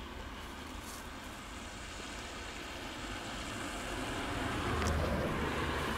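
Low, steady rumble of background traffic, growing louder around four to five seconds in as a vehicle passes.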